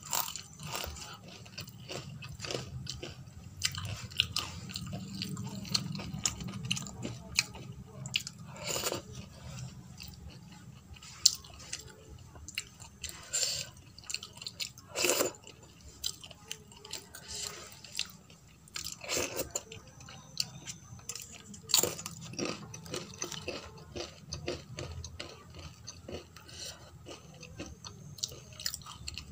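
Close-miked chewing of dal and rice, with wet mouth smacks and a few sharper crunches from bites of papad. Fingers squelch through the dal and rice on a steel plate as she mixes the next mouthful.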